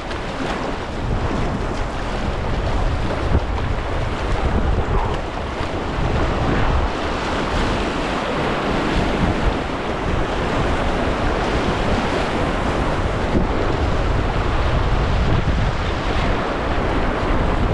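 River water rushing through a small rapid, with wind buffeting the microphone as a low rumble.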